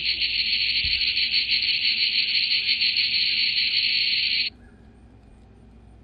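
A cicada singing: a loud, steady, high-pitched buzz that cuts off abruptly about four and a half seconds in.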